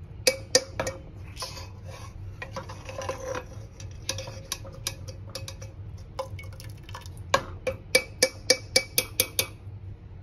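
Steel ladle clinking against a metal pot as a tadka is poured into dal and stirred in, ending in a quick run of regular clinks, about four a second.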